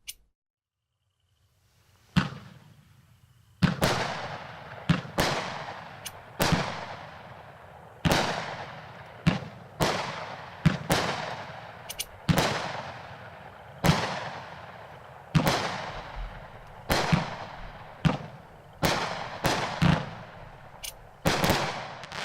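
A 200-gram consumer fireworks cake (Ninja Fireworks 'Thunderstruck') firing: about twenty loud aerial breaks, roughly one a second, each bang trailing off over about a second.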